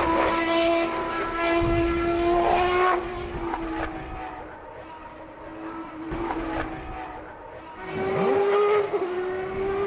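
Group C racing car engine running at high revs with a steady high pitch. It fades away after about three seconds, then swells again near the end with a slight rise in pitch.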